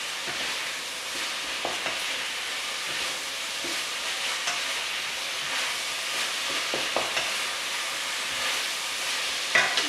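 Minced beef and vegetables sizzling in a wok as they are stir-fried with a wooden spatula, with occasional light knocks of the spatula against the pan.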